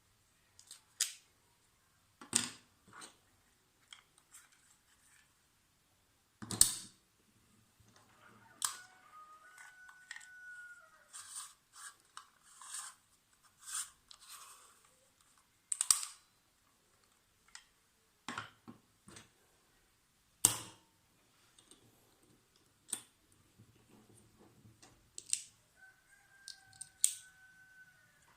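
Small objects and packaging being handled: scattered sharp clicks and taps with some rustling, and two brief squeaky rubbing sounds, one about a third of the way in and one near the end.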